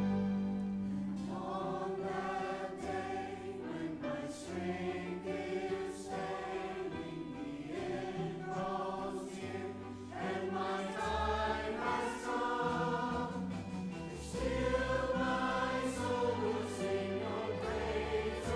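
Mixed church choir of men's and women's voices singing a hymn in parts over low held accompaniment notes.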